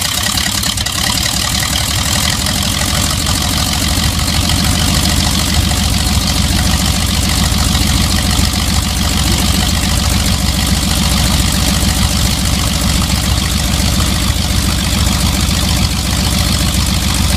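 Radial engine of a 1935 Waco YMF biplane running steadily at idle, just after a cold start.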